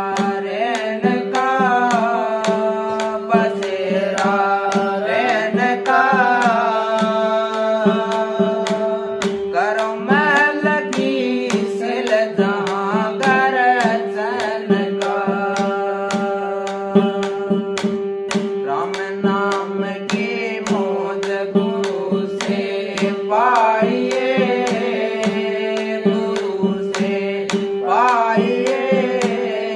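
A man sings a devotional shabad over a steady drone, with frequent hand-drum strokes keeping time.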